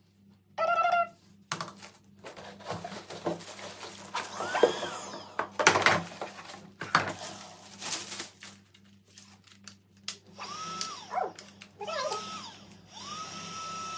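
Kärcher VC 6 vacuum cleaner being handled and clicked together, then its motor switched on three times in the last few seconds: each time a whine rises to a steady pitch and falls away, the last one held for a couple of seconds.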